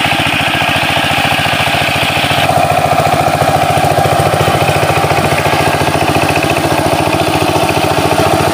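Walk-behind power tiller's single-cylinder diesel engine running loudly with a rapid, steady chugging beat as its cage wheels churn through paddy mud.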